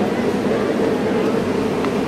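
Steady mechanical hum of a funicular railway station with the funicular car standing at the platform, even and unbroken.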